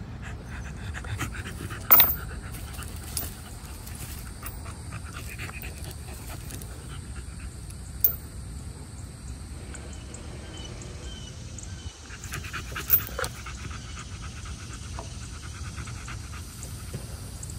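American bully dog panting rapidly with its mouth open, heaviest in a stretch about twelve seconds in. A few sharp clicks come through, the loudest about two seconds in.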